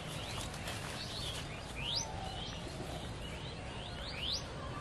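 Birds calling: a series of short, quick rising chirps, the loudest about two seconds in and again near the end, over steady low background noise.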